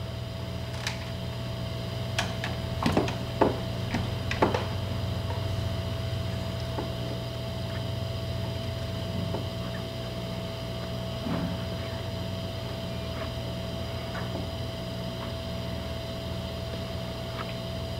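Hot-air rework station blowing steadily while a replacement sensor is heated onto a drone's circuit board: a fan hum with a thin held whine. A few light clicks in the first few seconds.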